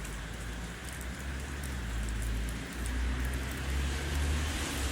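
Heavy rain falling steadily as an even hiss, with a low rumble underneath.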